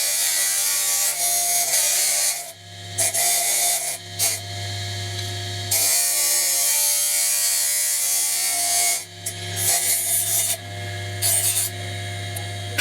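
A knife blade being worked against an abrasive, with stretches of harsh rasping noise that start and stop several times. Between them an electric motor hums steadily.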